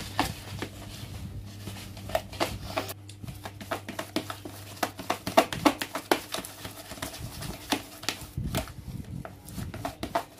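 Bait ingredients being mixed and handled by hand in a bowl: irregular clicks, taps and rustles. A low steady hum stops about three seconds in.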